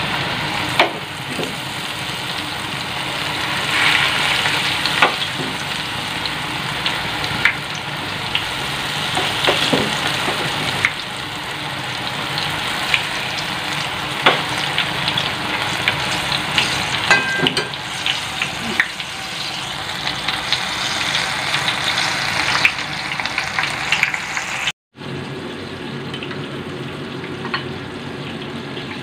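Battered banana pieces deep-frying in hot oil in a frying pan: steady sizzling with frequent sharp pops and clicks. The sound cuts out for a moment near the end, then the sizzling goes on softer.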